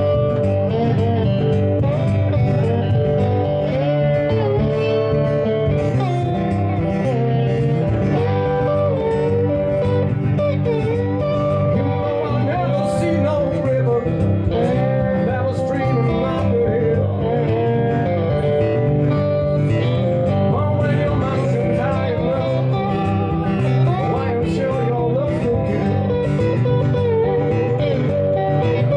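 Live acoustic blues: two acoustic guitars playing together, with a man's voice singing at the microphone for part of it.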